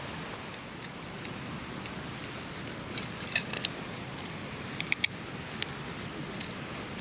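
Wood fire crackling: scattered sharp pops over a steady hiss, with a small cluster of pops in the middle and another a little later.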